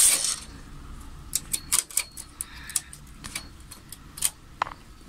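A knitting-machine carriage finishes its pass across the needle bed in the first moment. Then come scattered light metallic clicks as a hand transfer tool and fingers move stitches and needles on the metal bed.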